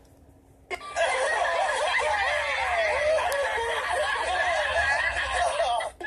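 Several cartoon characters laughing at once, played through a tablet's speaker. The laughter starts about a second in, after a brief quiet gap, and stops just at the end.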